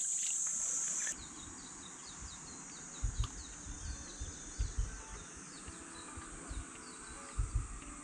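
A steady, high insect buzz that cuts off abruptly about a second in. It gives way to fainter outdoor ambience: a run of short, high, falling chirps at about two to three a second, with a few low thumps.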